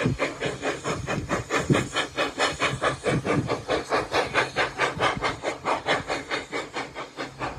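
Small steam locomotive working a passenger train, its exhaust chuffing in quick, even beats.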